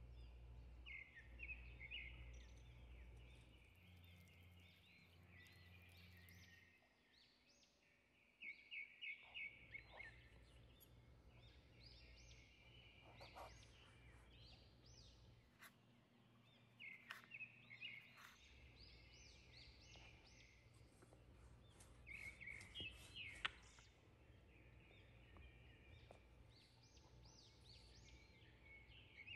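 Near silence: faint room tone with short runs of high chirps every few seconds.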